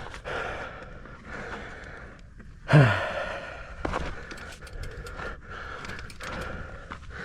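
A person breathing hard in gasps and sighs, with one short loud voiced exclamation falling in pitch about three seconds in.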